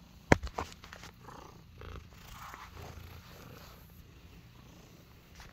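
Domestic cat purring steadily while being stroked, with a sharp knock and a few smaller clicks near the start.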